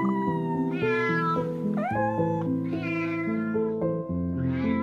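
Domestic cat meowing several times, each call rising and then falling in pitch, over soft background music with held notes.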